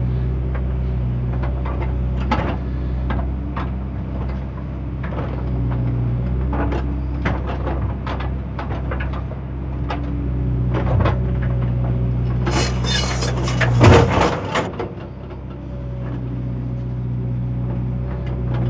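A JCB excavator's diesel engine running steadily while it works, with scattered knocks and clanks throughout. A louder, harsh burst of noise lasts about two seconds, starting roughly two-thirds of the way through.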